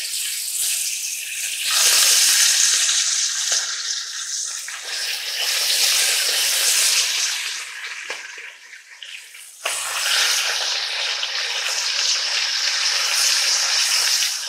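Chicken thighs sizzling as they are laid into hot olive oil over medium-high heat. The sizzle fades about eight seconds in, then comes back suddenly near ten seconds.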